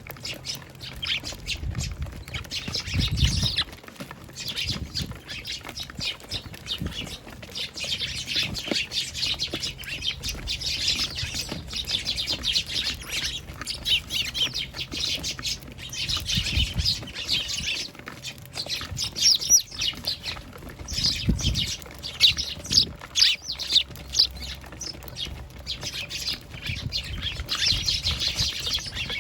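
A flock of Eurasian tree sparrows chirping busily and continuously, many calls overlapping, with a few brief low thumps.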